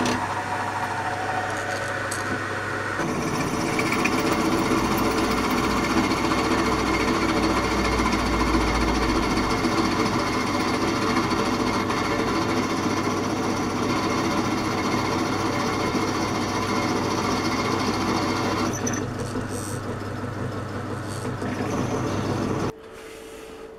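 Bench pillar drill running, its twist drill boring through the steel of a lathe drive dog. The cutting noise thickens about three seconds in and thins about three-quarters of the way through. The drill motor stops shortly before the end.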